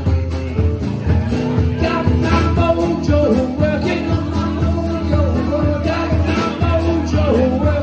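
Live blues band playing: strummed acoustic guitar and a drum kit with cymbal strikes, with a male lead voice singing from about two seconds in.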